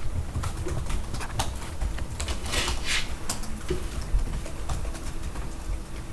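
Students typing on laptop keyboards: scattered key clicks over a low rumble, with a short rustle about two and a half seconds in.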